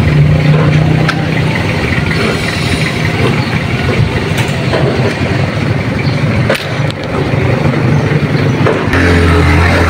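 Petrol flowing from a fuel-pump nozzle into a scooter's fuel tank, a steady rushing with a few clicks of the nozzle. Near the end a small engine starts running steadily.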